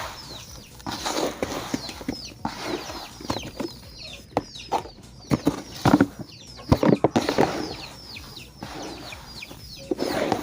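Chickens calling: many short, high, falling peeps throughout, with several sharp knocks in the middle.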